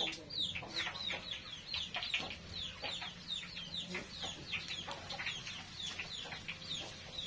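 Chicks peeping nonstop, a flock of them overlapping, each peep a short high note falling in pitch, several a second.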